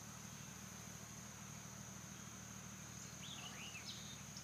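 Faint insects trilling in one steady high-pitched drone, with a bird giving a few quick chirps that rise and fall about three seconds in.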